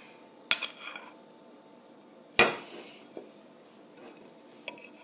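Dishes and cutlery clattering as a plate is handled: a sharp knock about half a second in, a louder one about two and a half seconds in, then a few lighter taps.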